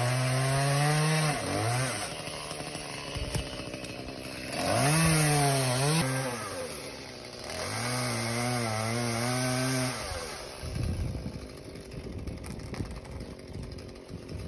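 Gasoline chainsaw revving and cutting through maple limbs, its engine pitch climbing and falling several times as it bites into the wood. About ten seconds in it drops to a lower, rougher running.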